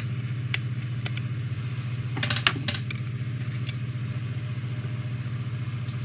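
Small clicks and a brief clatter as the battery cover is unscrewed and lifted off a replica Comlock prop, the loudest handling a little over two seconds in, over a steady low electrical hum.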